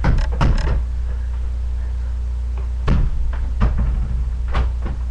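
Scattered sharp knocks and thumps: three in quick succession at the start, then single ones about three, three and a half and four and a half seconds in, over a steady low hum.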